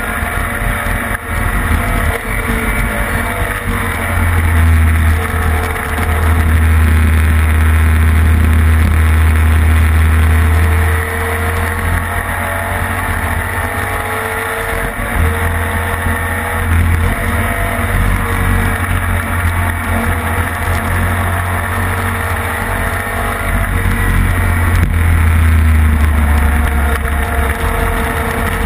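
Onboard sound of a classic racing sidecar outfit's engine running hard at speed on the circuit. It is held at high revs for long stretches and eases off and opens up again a few times.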